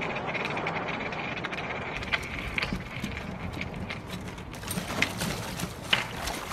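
Skateboard wheels rolling on stone paving: a steady rolling noise with a few sharp clicks.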